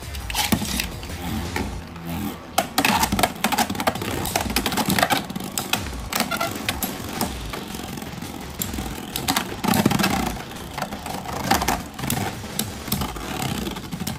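Beyblade X spinning tops whirring and colliding in a plastic stadium, with frequent sharp clicks and knocks as they strike each other and the stadium.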